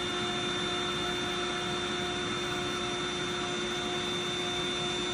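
Bestway air mattress's electric air pump running steadily with an even whine, blowing air into the mattress, which is nearly fully inflated.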